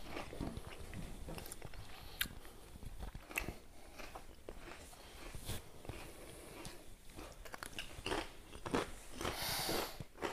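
Potato crisps being crunched and chewed, in scattered short crackly bites.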